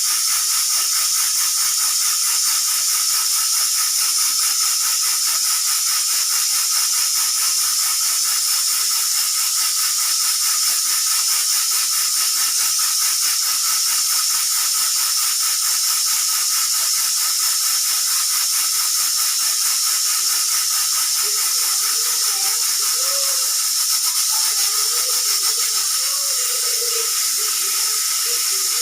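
Pressure cooker hissing steadily as steam escapes, with no whistle blowing: the whistle is not working, the sign that the cooker is not building up pressure. Faint wavering tones join in the background during the last third.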